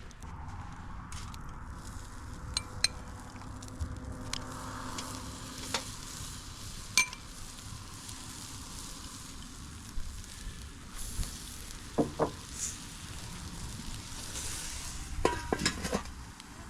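Flat iron steaks sizzling steadily on a grill, with a few sharp metallic clicks, loudest near the end.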